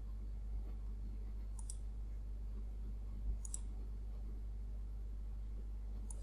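Computer mouse clicking twice, about two seconds apart, over a steady low hum.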